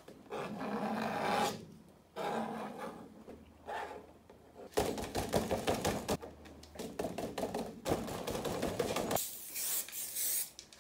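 Crumpled paper pressed and rubbed over a wet spray-painted surface in three scratchy stretches, then a spray-paint can hissing briefly near the end.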